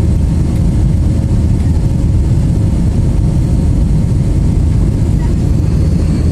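Steady roar of an Airbus A320's engines and airflow, heard inside the passenger cabin during the climb after takeoff, with a faint steady hum under it.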